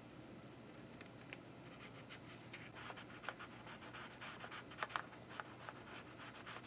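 Faint, irregular scraping and rubbing strokes of a plastic tool pressed across a comic book's paper page, burnishing repair tape down over a torn spot. The strokes start about a second in and come more often toward the end.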